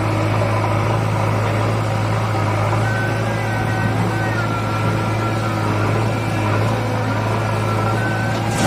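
Diesel engines of a JCB 3DX backhoe loader and a Swaraj 744 FE tractor running with a steady low drone while the backhoe works its hydraulic arm. Near the end, a brief rattle as the bucket dumps soil into the tractor's steel trolley.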